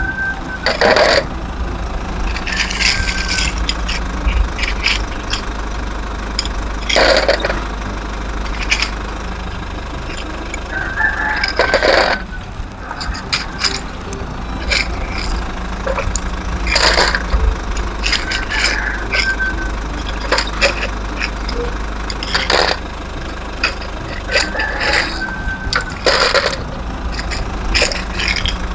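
Steady low engine-like rumble, like a heavy machine running. A sharp clatter about every five seconds is stones being scooped and dropped into a toy dump truck's bed by a toy excavator.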